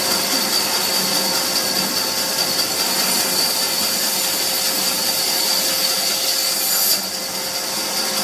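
BS-1200P scrap radiator copper-aluminium separating machine running steadily with a constant hum and hiss; the high hiss drops away about seven seconds in.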